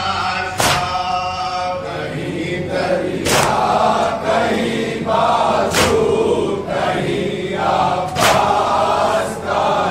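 Men chanting a Muharram noha (lament) together, with a loud collective chest-beat (matam) landing in unison about every two and a half seconds, four times.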